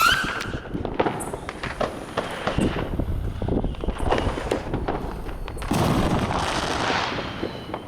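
Neighbourhood fireworks going off: a scattered run of sharp pops and bangs, with a longer hissing burst about six seconds in.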